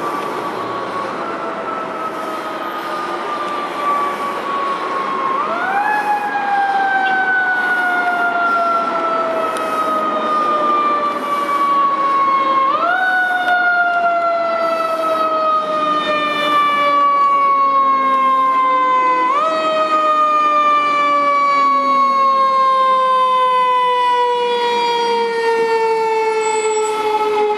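Federal Q2B mechanical siren on a fire engine, spun up repeatedly: each time the pitch rises sharply and then winds down slowly, about every six or seven seconds. It grows louder as the engine approaches.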